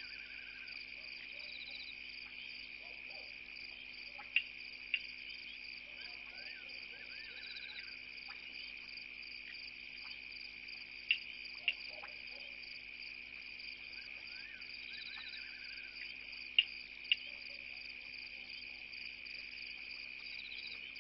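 Night chorus of crickets: a steady, high-pitched chirring throughout. Three times, about every six seconds, it is broken by a pair of sharp clicks half a second apart, the loudest sounds. A few faint short chirps are heard as well.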